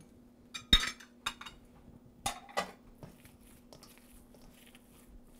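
Ceramic plates and small dishes clinking and knocking against each other and the table as they are moved aside, a few separate sharp clinks with the loudest about a second in, over a faint steady hum.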